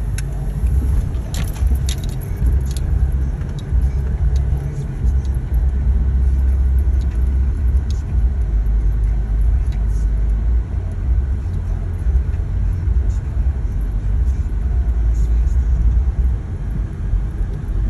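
Steady low rumble of a car's engine and tyres heard inside the cabin while driving, with a few short clicks or rattles about one to three seconds in.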